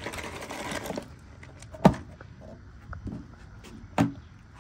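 A second of rustling, then two sharp thumps on the dock about two seconds apart, the second a little softer, with a few faint knocks between.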